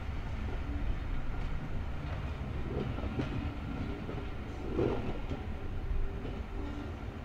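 Steam-hauled train of GWR Castle Class 7029 Clun Castle moving slowly while being shunted into a siding: a steady low rumble of the train on the rails.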